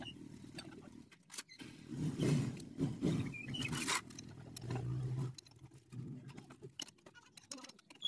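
Steel hand tools clinking and scraping as a socket and two wrenches are set on the flywheel nut of a Honda Astrea Grand motorcycle engine. Irregular metal clicks come with rustling handling noise, and there is a brief low hum around the middle.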